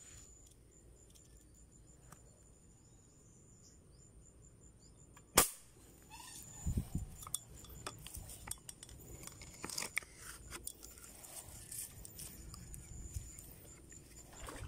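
A single sharp crack of a foot-pumped air rifle firing about five seconds in, followed by scattered short clicks and rustling.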